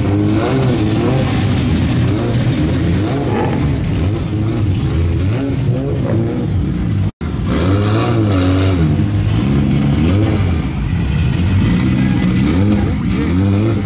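Performance car engines rumbling and revving as cars pull away, with people's voices mixed in. The sound drops out for an instant about halfway through.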